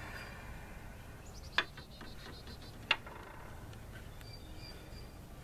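Two sharp clicks about a second and a half apart, over faint high chirping with a short rapid trill in the background.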